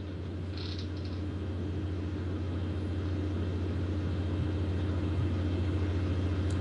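Steady low hum and rumble of background noise, slowly growing louder, with a brief faint hiss about a second in.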